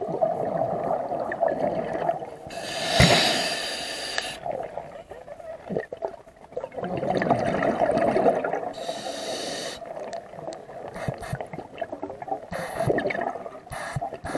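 Scuba diver breathing through a regulator underwater: bursts of rushing air and bubbling, about every four to six seconds, over a steady underwater rumble.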